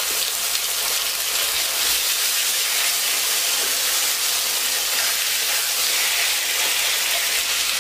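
Raw chicken breasts sizzling in hot vegetable oil in a frying pan: a steady, even hiss.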